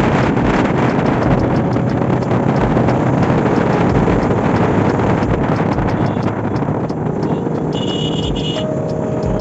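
Loud, steady rushing wind buffeting the microphone, with a short high tone near the end.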